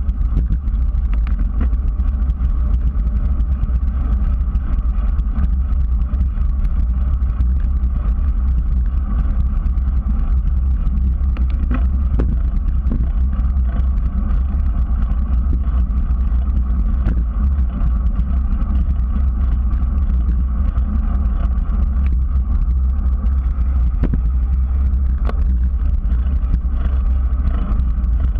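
Steady low rumble of wind buffeting and tyre-on-pavement noise from a bicycle rolling along a paved path, heard through a bike-mounted GoPro. Now and then a faint tick.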